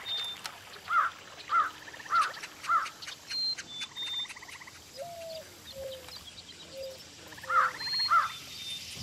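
Woodland sound effects: crows cawing in runs of quick caws, with short high bird whistles and rasping insect buzzes, which the narrator calls locusts. The caws stop for a few seconds in the middle, where lower whistled notes sound, and return near the end.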